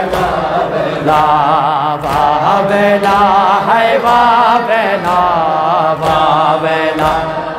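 Unaccompanied noha: a man's amplified voice chanting a lament in a wavering, drawn-out melody, with the congregation's voices joining in, over a steady beat of strikes about once a second.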